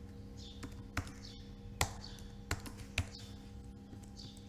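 Computer keyboard typing: a handful of sharp key clicks at uneven intervals, over a steady background hum.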